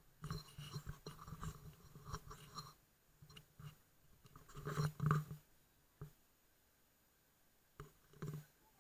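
Handling noise from a hand-held GitUp Git2 action camera: irregular scuffs, rubs and knocks in clusters, loudest about five seconds in. After a quiet spell of about two seconds come a few more knocks near the end.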